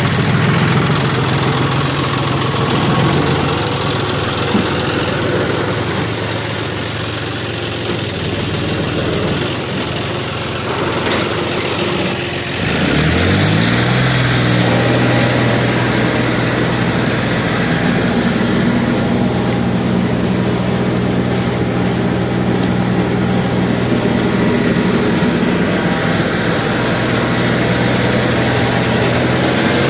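Heavy diesel engine of a tractor or backhoe loader running. A little under halfway through it revs up quickly, then holds a steady higher speed.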